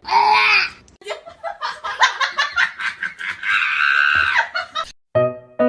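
A short loud high cry, then a person laughing in quick repeated bursts. Piano music starts near the end.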